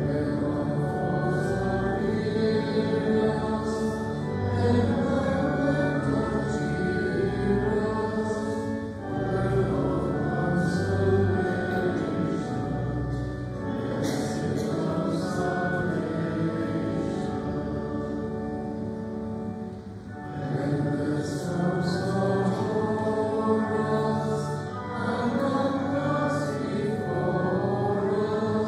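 Church congregation singing the closing hymn, number 454, in slow held notes with a sustained instrumental accompaniment, pausing briefly between lines.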